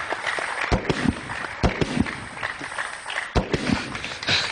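Studio audience applauding, with a few loud separate claps standing out over the steady clapping.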